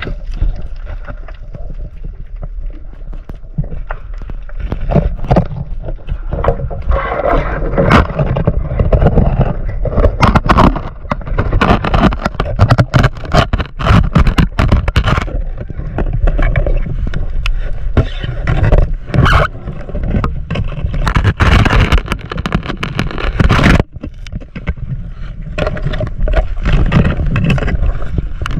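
Underwater sound from a diver's action camera: water rushing and rumbling against the housing, with many sharp clicks and knocks throughout.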